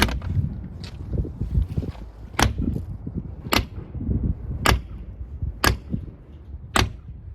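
Glass-breaker tip of an out-the-front knife striking a car window six times, sharp ticks with a longer gap after the first and then about one a second; the glass does not break.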